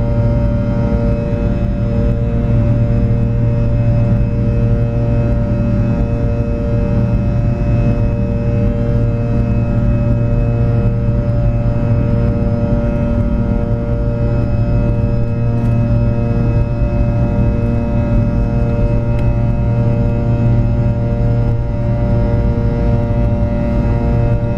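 Jet airliner engines heard from inside the passenger cabin during the climb after takeoff: a loud, steady drone with several held tones over a low rumble, one of them pulsing slowly and regularly.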